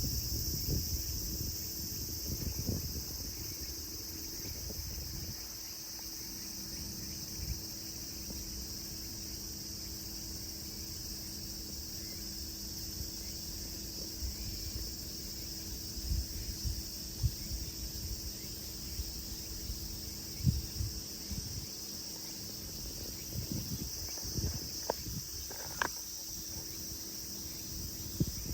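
Cicadas singing in a steady, high-pitched chorus, with scattered brief low thumps.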